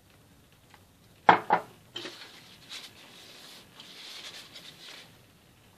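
A small glass of coffee syrup, with a silicone brush in it, set down on a marble worktop: two sharp knocks a quarter second apart, followed by a few seconds of faint scraping and rubbing.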